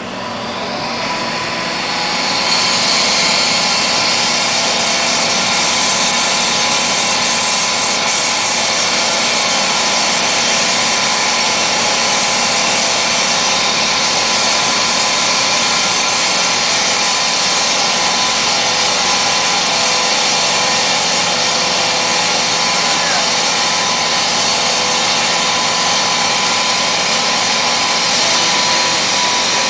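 Facade paint-spraying machine running steadily, a constant mechanical hum with a hiss over it. It grows louder over the first two or three seconds, then holds level.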